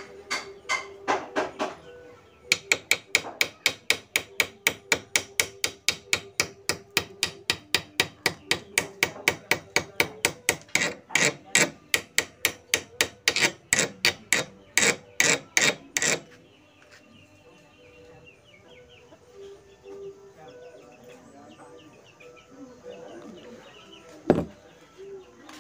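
Chipping hammer knocking slag off a weld bead on a steel bar clamped in a vise: a fast run of sharp metal strikes, about four a second, that stops about sixteen seconds in, followed by one loud knock near the end.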